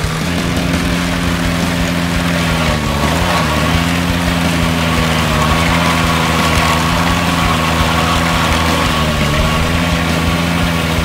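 Ventrac 4500 compact tractor's engine running steadily while driving its trencher attachment through a giant pumpkin. The engine note sags briefly twice, about three seconds in and again near the end, as the trencher takes load. A steady higher whine joins about two seconds in.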